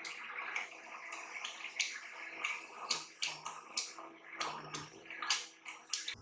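Spoon scraping and tapping thick, wet blended apricot paste out of a blender jar, a squelchy wet sound with irregular sharp clicks about once or twice a second. It cuts off abruptly near the end.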